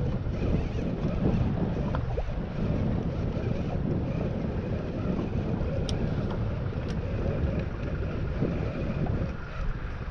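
Wind buffeting the microphone over water sloshing against a small boat's hull, a steady rough rushing that is heaviest in the lows.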